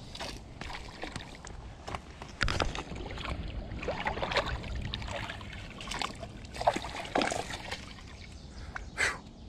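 Water splashing and sloshing in several irregular bursts as a hooked fish thrashes at the surface and a landing net is dipped in to scoop it up.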